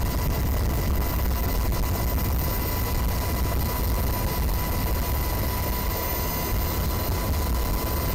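Steady low rumble of a ship underway at sea, with a faint constant high whine from machinery.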